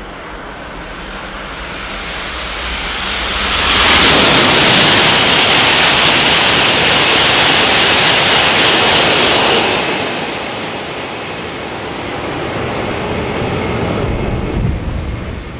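E6 Komachi and E5 Hayabusa Shinkansen, coupled, passing through a station at high speed without stopping. The rush of air and wheels builds over about four seconds, stays loud for about six as the cars sweep by, then falls away.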